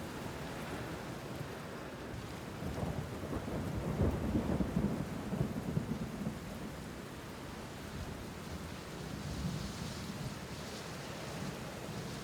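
Steady rain, with a low roll of thunder swelling a few seconds in and fading again.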